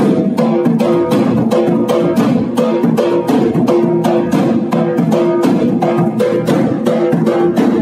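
Instrumental music: plucked strings over a fast, steady percussive beat.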